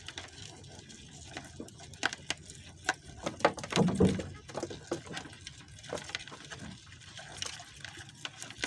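Water lapping and splashing against a small outrigger fishing boat, with scattered short clicks and knocks and a louder splash about four seconds in.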